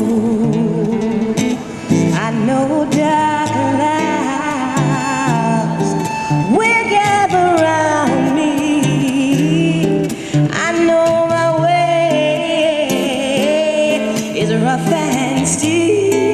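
Singing over an acoustic guitar accompaniment: a slow melody with long, wavering held notes.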